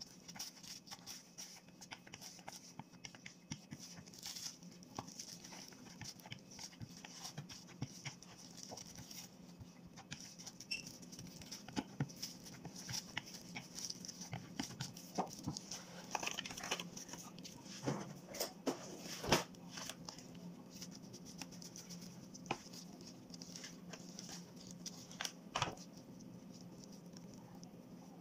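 Wooden rolling pin rolling out pizza dough on a floured glass cutting board: scattered soft knocks and clicks of the pin against the board, with crinkling of plastic gloves, over a faint steady hum. The knocks come thicker and louder in the second half.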